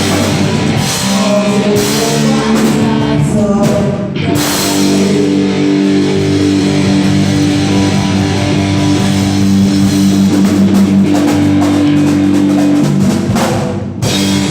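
Live rock band playing, with guitar, drums and singing. About four seconds in the band settles into a long held chord that breaks off near the end.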